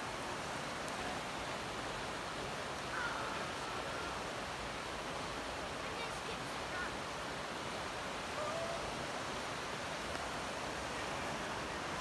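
Steady rush of a mountain river flowing over rocks and rapids, an even hiss-like roar with no breaks.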